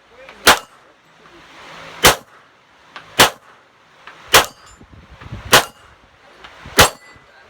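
Six 9mm pistol shots from a Glock 17, fired one at a time about a second and a half apart, each a sharp crack with a metallic clang.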